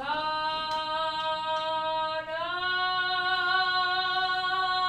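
A woman's voice singing long held notes without words, stepping up to a higher note about two seconds in.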